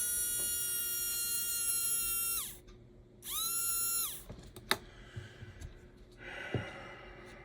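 Freshly reassembled HO scale slot car motor, a Wizzard Storm chassis, running on test with a high, steady whine; it winds down about two and a half seconds in, spins up again for about a second, then winds down. A few light clicks follow.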